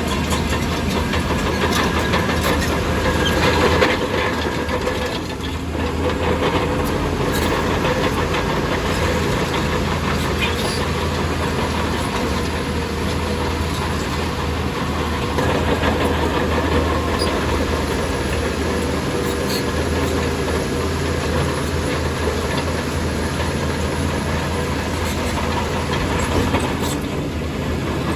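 Shantui DH17C2 crawler bulldozer working: its diesel engine runs steadily under load while the steel tracks clank and rattle.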